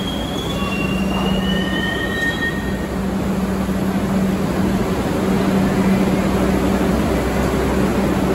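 An R142 New York City subway train on the 2 line pulling into a station. The wheels rumble on the rails under a steady low hum, with brief high wheel squeals in the first couple of seconds.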